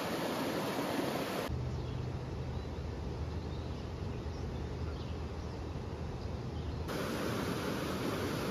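River rapids rushing over rocks. About a second and a half in the rushing cuts out for some five seconds, leaving only a low, steady rumble, then the rapids return near the end.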